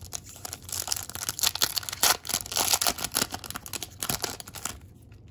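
A 2020 Topps Pro Debut baseball card pack's wrapper being torn open and crinkled, a run of sharp crackling that stops shortly before the end.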